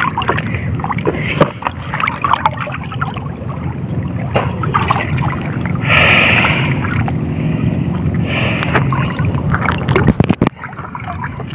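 Seawater sloshing and splashing around a wading man as he hauls a wet fishing net in hand over hand, with a louder splash about six seconds in, over a steady low rumble.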